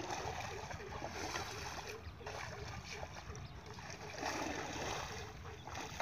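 Water splashing and swishing as a long fishing pole and line are dragged through shallow pond water, over a steady low rumble. The splashing swells about four seconds in.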